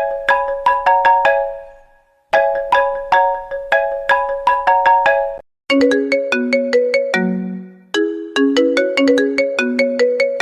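iPhone ringtones: a high, chiming melody of struck notes plays its phrase, pauses briefly, and plays it again; about five and a half seconds in a different, lower ringtone melody starts and repeats its phrase.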